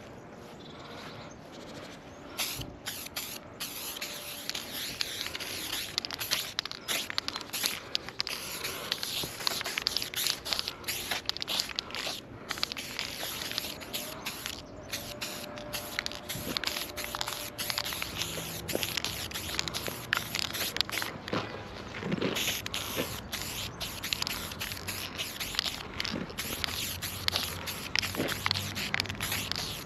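Aerosol spray paint can fitted with a wide Big Shotty Ultra cap, hissing in repeated strokes of varying length with short breaks between them.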